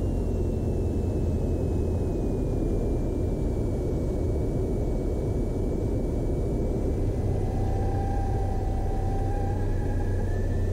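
Cessna 172 Skyhawk's engine and propeller droning at low power, heard inside the cockpit through the landing flare and touchdown, with a high whine in the engine note slowly falling over the first few seconds. A steady tone sounds for about two seconds near the end.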